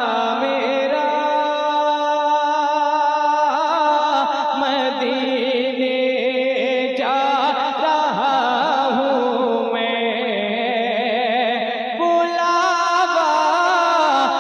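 A male voice singing a naat through a microphone and loudspeakers: long, ornamented held notes with wavering pitch and no clear words.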